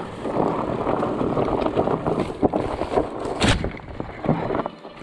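Fat bike rolling down a dirt forest singletrack: tyre rumble with the bike rattling over bumps and roots, a sharp knock about three and a half seconds in, and the noise dropping off near the end.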